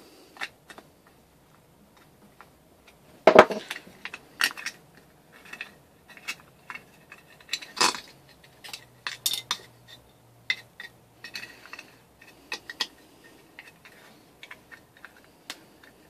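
Metal engine parts and tools clinking and knocking irregularly while a small 3 hp engine is being fitted back together by hand, with a sharp knock about 3 seconds in and another near 8 seconds.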